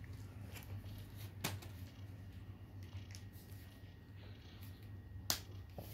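Faint scattered clicks and rustles of a plastic Rubik's cube being handled, with two sharper clicks, about a second and a half in and near the end, over a low steady hum.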